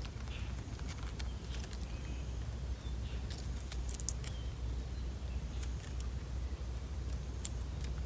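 Outdoor ambience: scattered light clicks and rustles over a low steady rumble, with a few faint short high chirps.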